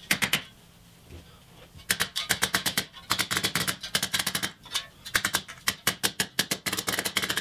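Claw hammer tapping rapidly on a cut drink can to flatten a bump in it: a few strikes, a pause of about a second, then a long run of quick taps, several a second.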